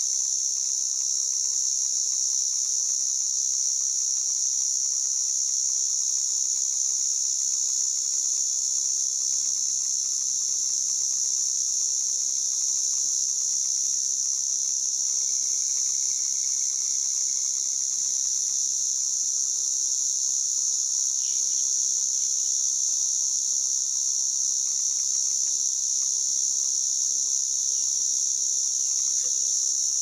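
White drummer cicada (Arunta perulata) calling: a continuous, steady, high-pitched buzz with no breaks or changes in pitch.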